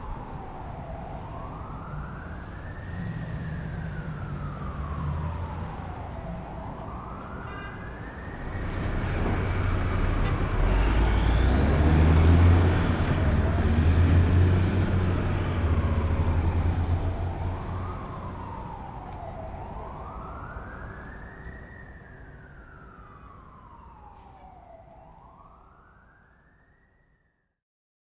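Emergency vehicle siren wailing, its pitch rising and falling about every four seconds, with a low rumble. It grows louder to a peak about halfway through and then fades away as the vehicle passes, ending in silence just before the end.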